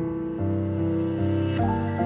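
Background instrumental music: sustained chords that change about every half second.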